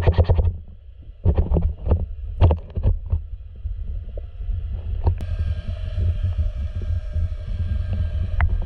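Muffled underwater rumble picked up by a submerged camera, broken by a few short crackling knocks in the first three seconds. About five seconds in, a steady whine of several pitches joins and holds.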